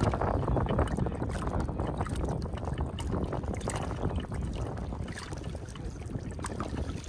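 Wind buffeting the microphone over choppy lake water lapping around wading legs, with scattered small splashes as a hooked trout is led into a landing net.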